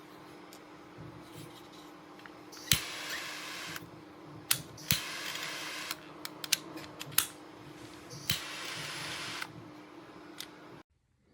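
Sondiko S907 butane torch being fired: the push-button igniter snaps several times, and three times a click is followed by about a second of hissing gas flame. A faint steady hum runs underneath.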